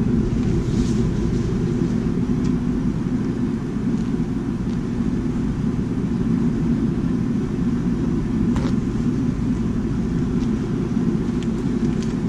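Propane burner running steadily under a cast iron disco wok, a low, even rush of flame, with a few faint clicks.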